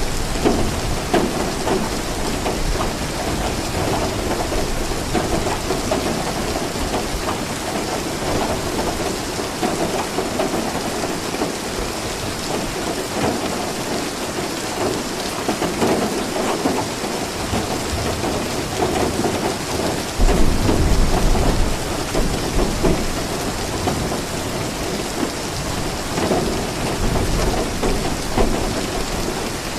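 Steady heavy rain falling on a surface, with low rolling thunder; a louder thunder rumble comes about two-thirds of the way through.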